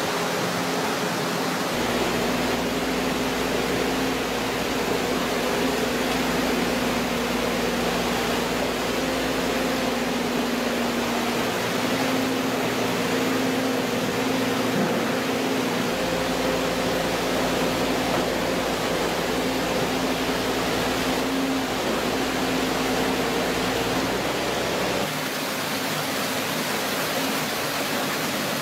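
Walking excavator's diesel engine running steadily with a humming tone, over a constant rushing hiss of water. The low rumble drops out twice and shifts about three-quarters of the way through.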